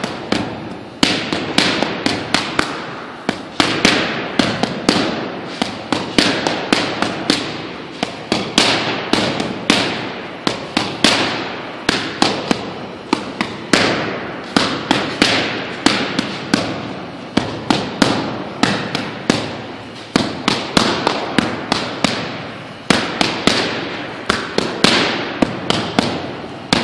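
Boxing gloves striking focus mitts in quick combinations: sharp smacks, several a second in clusters, throughout.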